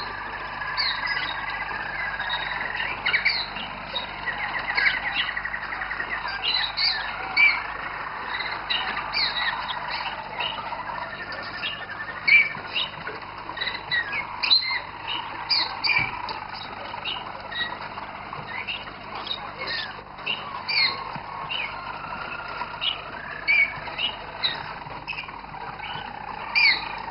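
Roller canaries singing: long rolling trills lower down, with many short, sharp chirps over them.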